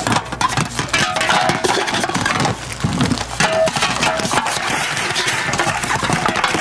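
Recyclable waste, cans and plastic packaging, handled, crumpled and struck as improvised instruments: a dense, unbroken run of clinks, clatters and crackles, with a few brief ringing tones.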